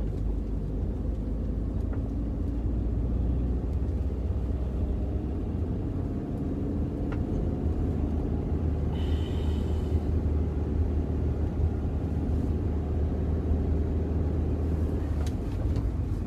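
A car driving steadily along a road, a low, even rumble of engine and tyres. About nine seconds in there is a brief higher-pitched sound.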